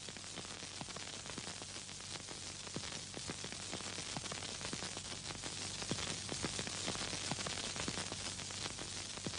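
Crackling hiss of radio static over a faint steady low hum. It swells slightly toward the middle and fades near the end.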